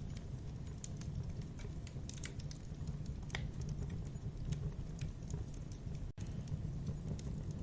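Campfire burning: wood crackling with irregular sharp pops and snaps over a steady low rumble. There is a split-second dropout about six seconds in.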